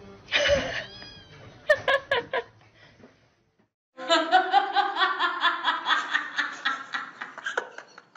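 A few short pitched calls, then a brief silence. From about four seconds in, a person laughs in quick, repeated bursts for nearly four seconds.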